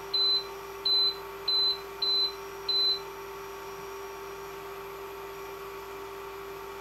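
Induction cooker control panel beeping five times in about three seconds, one short high beep per press of the minus button as the set temperature is lowered to 140. A steady hum from the running cooker continues underneath.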